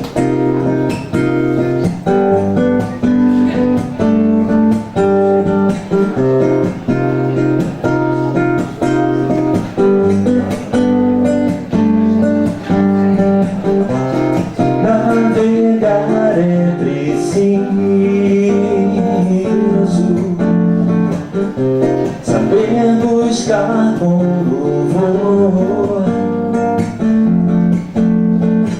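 Live music: a guitar-led instrumental introduction to a song, with chords changing every second or so.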